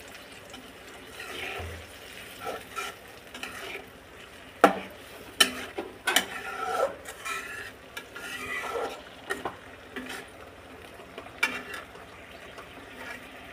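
Metal spatula stirring potatoes, chillies and onions in a wok of simmering oil and water, scraping the pan and knocking against its side several times, over a low sizzle.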